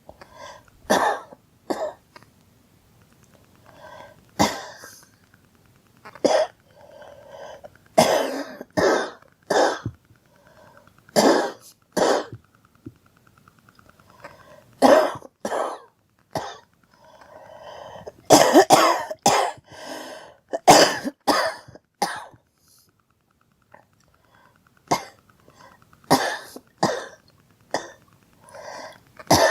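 A girl coughing over and over: about twenty short, sharp coughs, some single and some in quick runs of two or three, with a brief lull a little after two-thirds of the way through.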